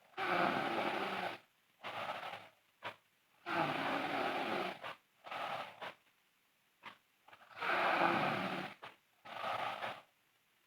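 A sleeping girl snoring loudly. Each breath brings a long snore followed by a shorter one, repeated three times at intervals of roughly four seconds.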